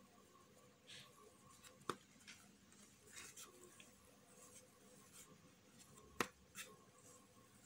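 Faint rubbing of soft dough being rolled into a ball under the hand on a stone countertop, with two sharp taps, about two seconds in and about six seconds in.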